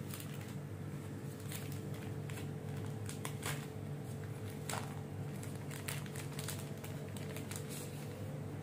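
Small cardboard-and-plastic webcam packaging being opened and handled: scattered clicks and short rustles as the inner tray slides out of the box, a few sharper clicks among them. A steady low hum sits underneath.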